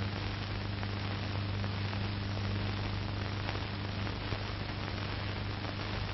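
Steady hiss with a low mains hum underneath: the recording's own background noise, with nothing else sounding.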